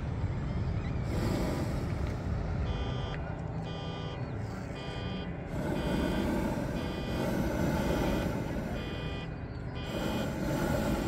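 A vehicle's reversing alarm beeping at an even pace, about three beeps every two seconds, starting a couple of seconds in and stopping near the end. Under it come several long swells of rushing noise, from the propane burners of the hot air balloons lifting off overhead.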